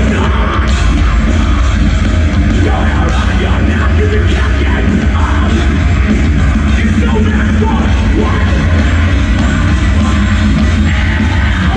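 Metalcore band playing live at full volume: distorted guitars, bass and drums in a dense wall of sound, with a heavy, booming low end.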